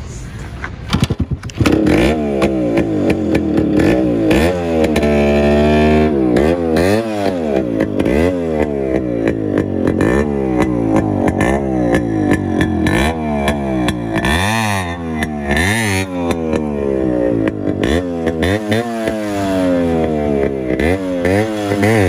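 Yamaha RX two-stroke single-cylinder motorcycle engine blasting through twin original silencers with the mufflers cut out, revved up and down over and over while standing. A few sharp pops come about a second in, and then the engine runs loud.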